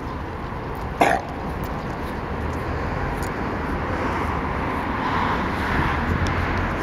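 Steady road traffic noise that swells a little towards the end, with one short, sharp sound about a second in, the loudest moment.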